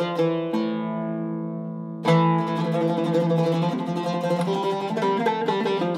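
Solo oud with a cedar top and African rosewood back, plucked: a few notes, one left ringing and fading for about a second and a half, then from about two seconds in a quick, continuous run of notes.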